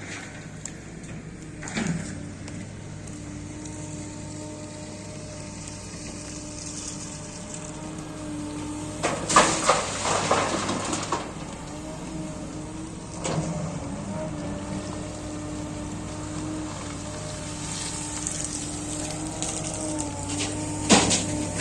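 Motor grader's diesel engine running steadily with a low hum. Louder bursts of rattling noise come about nine to eleven seconds in and again near the end.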